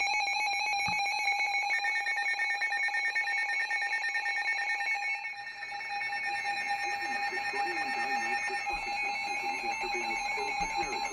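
Emergency alert tones from weather-radio and broadcast EAS receivers: several steady electronic tones sounding together, the attention signal that comes before a warning message. There is a rapid buzzing pulse in the first two seconds.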